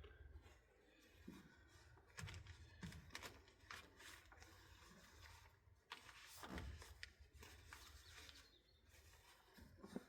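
Faint scattered clicks and knocks of hands handling parts on a portable generator, with light rustling between them.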